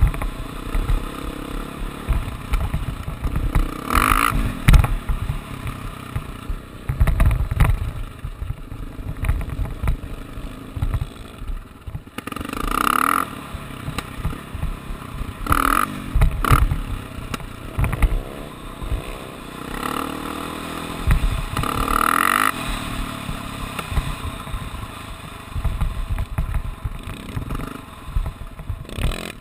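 ATV engine running under load, rising in revs several times as it is ridden fast over rough ground, with heavy wind buffeting on the microphone and clattering over the bumps.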